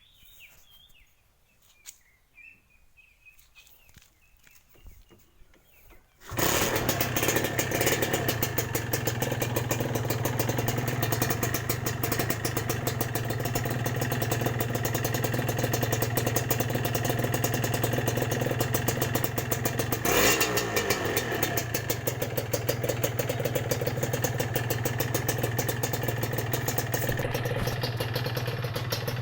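Kawasaki Ninja R two-stroke single-cylinder motorcycle engine with a modified exhaust. It sets in suddenly about six seconds in and then runs steadily with a fast, even pulse. The first seconds are quiet apart from faint chirps and clicks.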